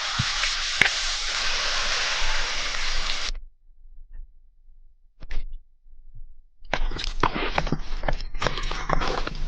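Food sizzling in a hot pan, a dense steady hiss that cuts off sharply about a third of the way in. After a near-quiet pause, irregular clicks and crackles start up near the end.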